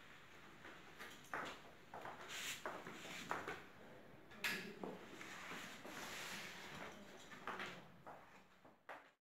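Faint, irregular rustling and scraping of newspaper paper being handled, in short uneven bursts. It cuts off abruptly just before the end.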